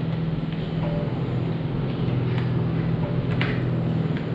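A steady low hum, with a few short sharp clicks from a motorcycle helmet's plastic visor being handled and fitted at its side pivot.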